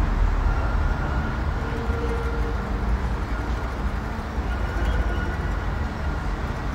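Low rumbling outdoor background noise, easing off slightly, with no clear single event.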